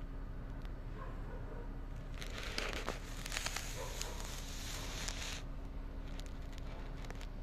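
A crinkling, crackly rustle with a few sharp clicks, lasting about three seconds from about two seconds in, over a steady low hum.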